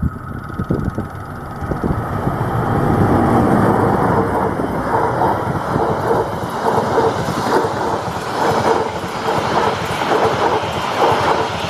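A CC206 diesel-electric locomotive and its passenger train passing close by at speed: a loud rush and low rumble as the locomotive goes by, then the coaches streaming past with a repeating clatter of wheels over the rail joints.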